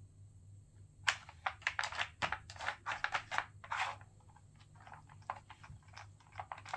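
A cat playing with a toy: a quick run of light clicks and rattles that starts about a second in and thins out after about four seconds.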